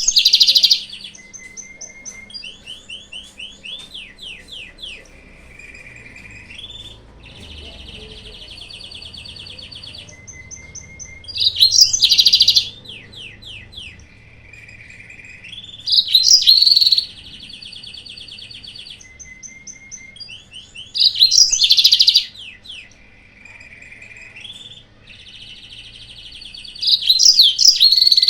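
Yellow-fronted canary (Mozambique canary) song played as a lure recording: runs of quick trills and repeated sweet notes broken every few seconds by a loud, harsh burst of chatter, the phrases repeating in a near-identical cycle.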